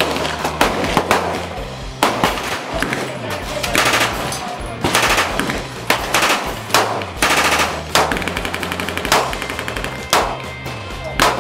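Gunfire on an outdoor range: scattered single shots mixed with rapid bursts of automatic fire, the longest bursts about halfway through. Background music with a steady bass line runs underneath.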